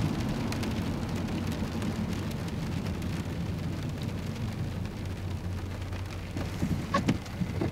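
Rain pattering on a car windshield and body, a steady hiss of drops over a low rumble, with a few sharper taps near the end.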